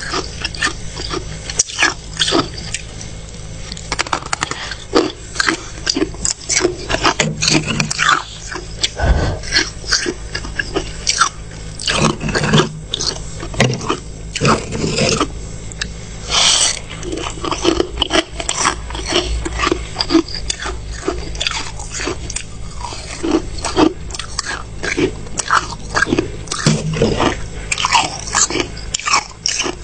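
Freezer frost being bitten and chewed close to the microphone: an irregular, continuous string of crisp crunches.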